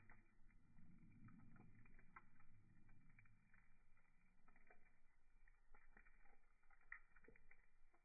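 Wood fire crackling faintly, with scattered small pops and snaps. A low rumble of burning runs under it for the first few seconds.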